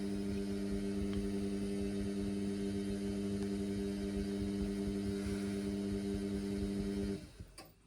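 Indesit washing machine running a synthetics cycle overloaded with suds, giving a steady electric hum over a low rumble. The hum cuts off about seven seconds in.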